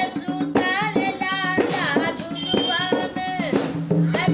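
A woman singing with sliding, drawn-out notes while beating a dholak, the two-headed wooden barrel drum, with her hands.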